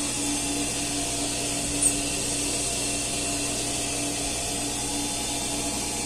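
Electric pool filter pump running steadily while the pool is vacuumed, a constant hum with a hiss of water. A brief high chirp about two seconds in.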